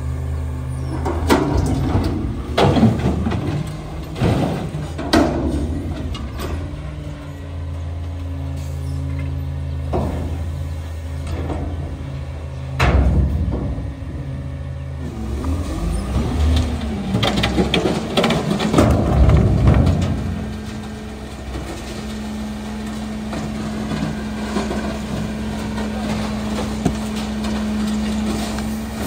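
Autocar WX front-loader garbage truck's engine running, its speed stepping up and down as the hydraulic forks lower a steel container to the ground. Several hard metal bangs and clanks come from the container being set down and bulky items being thrown into it. The last several seconds hold a steady hum.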